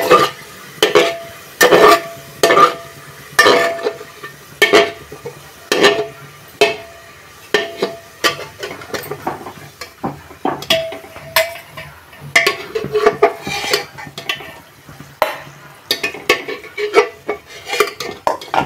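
A flat steel spatula scraping and knocking against the inside of an aluminium pressure cooker while fried onions are lifted out of the hot oil. The strokes come about once a second at first, each with a short metallic ring, then quicker and lighter after the middle, over a light sizzle of oil.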